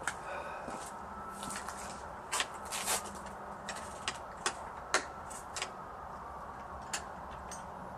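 Scattered light clicks and knocks of hands taking hold of a chainsaw and settling it on a table, over a faint steady hum. The chainsaw's engine is not running.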